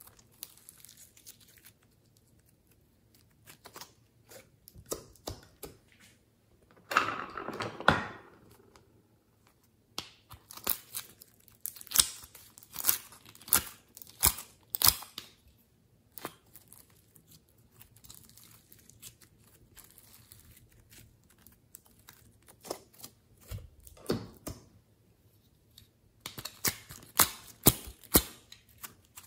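Glossy slime being squeezed and stretched by hand, giving sticky clicks, pops and crackles in irregular clusters, with a dense crackling burst about seven seconds in and runs of sharp clicks later on.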